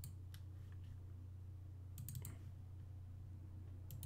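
Faint computer mouse clicks: a couple near the start, a quick run of several about two seconds in, and two more near the end, over a steady low hum.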